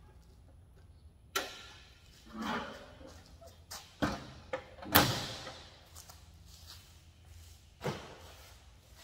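Parts of a steel wall cabinet being knocked into place without a mallet: about five sharp metallic knocks spread over several seconds, the loudest about five seconds in, with a brief scrape between the first two.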